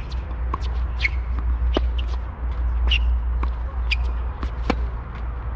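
Tennis rally on a hard court: a string of sharp racket strikes and ball bounces, with tennis shoes scuffing and squeaking on the court. A steady low wind rumble on the microphone runs underneath.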